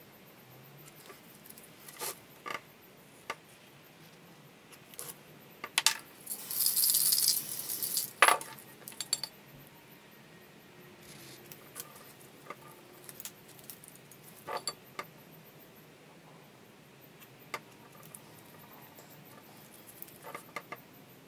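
A small tool scratching and tapping on a spray-painted board in scattered clicks, and about six seconds in a loud hiss of a spray-paint can lasting about a second and a half.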